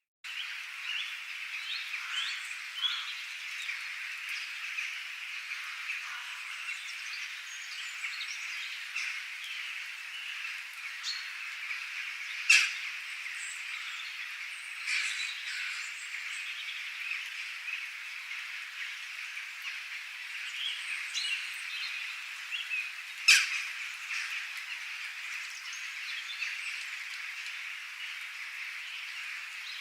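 Dense chorus of many birds chirping and calling over one another, with frog-like calls mixed in. The sound sets in abruptly at the start. Two sharper, louder calls stand out, about twelve seconds and twenty-three seconds in.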